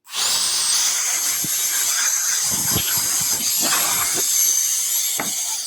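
Rechargeable cordless electric air duster blowing dust off an instrument-cluster display screen. Its small motor spins up with a rising whine in the first second, then runs steadily with a loud rush of air and a high whine, and shuts off near the end. A few faint knocks sound under it.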